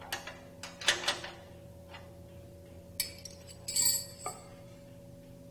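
Metal tools clinking and knocking against metal parts, a handful of separate sharp clinks. The loudest, about four seconds in, rings briefly. A faint steady hum runs underneath.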